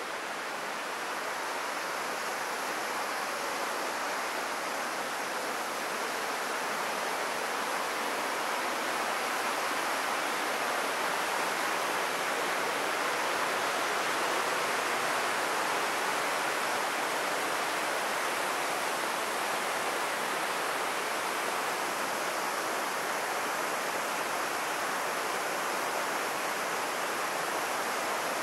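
Steady rush of white water from the Buna river at its spring, growing louder over the first half and then holding steady.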